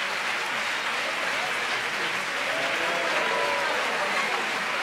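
Concert audience applauding steadily, with a few voices calling out over the clapping.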